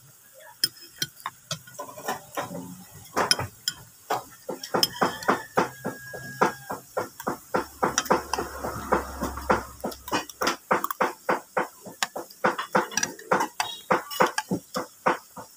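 Metal spoon and fork clinking and scraping against a plate while eating rice, a rapid run of sharp clicks, several every second.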